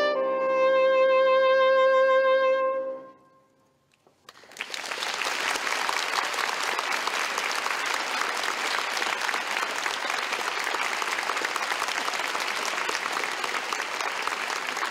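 Soprano saxophone holds a final note over the piano, fading out about three seconds in. After a second of silence the audience breaks into steady applause.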